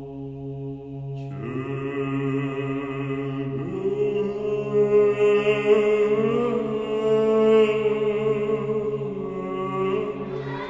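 Slow song intro: a steady low drone, joined a little over a second in by sustained wordless chant-like voices that swell and shift in pitch.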